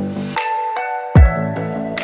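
Electronic background music: sustained synth chords over a pulsing bass line. The bass drops out for under a second, then comes back with a deep hit and a cymbal crash.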